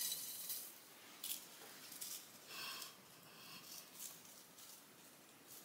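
Faint rustling of dried grass stems being pulled from a vase and handled, a handful of short, hissy brushes.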